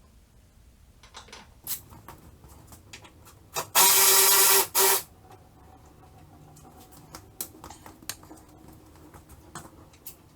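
A handheld electric power tool's motor runs in one burst of about a second, then a brief second burst, amid light clicks and knocks of tools and parts being handled.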